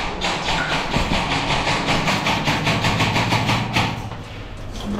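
Tokyo Marui MK18 gas-blowback airsoft rifle firing a long full-auto burst, the shots coming in a fast, even rhythm. The burst stops just before four seconds in.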